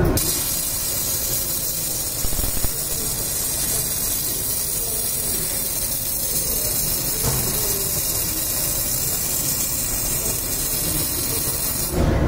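MIG welding arc from a hose-fed welding torch, hissing steadily through one long continuous weld. It starts abruptly and cuts off near the end.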